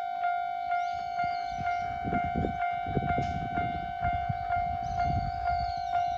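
Japanese level-crossing warning bell ringing its 'kan-kan' about twice a second, one steady ringing pitch. From about a second and a half in, a Hokusei Line narrow-gauge train passes with a low clattering rumble of wheels, and a high whine rises and falls twice.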